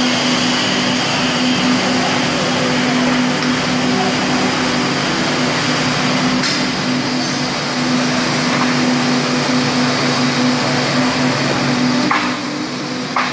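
Steady drone of construction machinery running, with a strong unchanging hum, and a couple of sharp knocks near the end.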